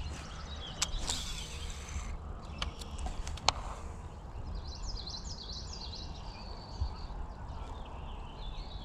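Outdoor ambience: a steady low rumble with a few sharp clicks in the first few seconds, then a small bird singing a quick run of high chirping notes in the middle.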